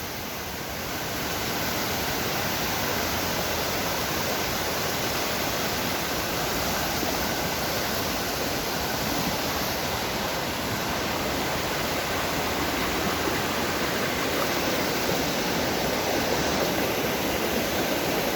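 Rushing water of a fast-flowing woodland stream and waterfalls, a steady noise that grows a little louder about a second in.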